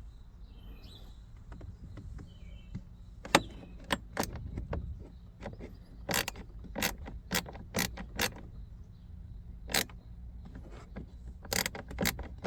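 Small ratchet clicking and metal clinking while it backs out a screw holding the rear HVAC blend door actuator. There are a dozen or so sharp clicks at irregular intervals, starting about three seconds in.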